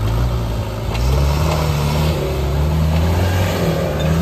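Off-road 4x4 vehicle's engine running under load, its pitch shifting up and down and getting louder about a second in.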